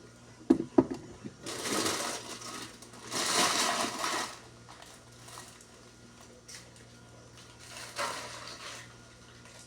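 Two sharp knocks, then three bursts of rubbing noise, the first two about a second long and a shorter one near the end, from cleaning out a refrigerator.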